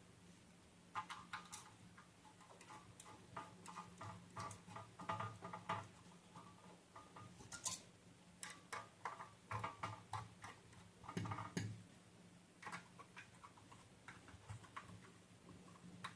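Quiet, irregular small metallic clicks and ticks of bolts and washers being fitted and tightened by hand to fix ceiling fan blades to the fan motor.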